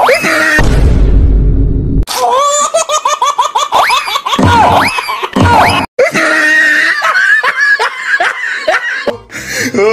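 High-pitched laughter in quick repeated bursts that rise and fall in pitch. Before it comes a brief hiss and a low rumble lasting over a second. The laughter breaks off abruptly for a moment about six seconds in.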